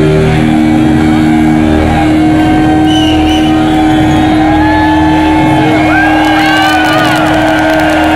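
Live hard-rock band with heavily distorted electric guitar, loud and overdriven on the recording: a low note held steadily under lead notes that bend and slide in pitch.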